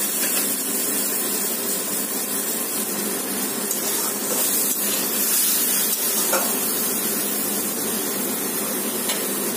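Steady hiss of mango pieces and freshly added water sizzling in a hot aluminium kadai on a gas burner, with a few faint scrapes of a spatula against the pan as it is stirred.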